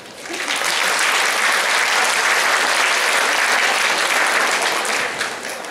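Audience applauding. The clapping swells within the first second, holds steady, then thins out near the end.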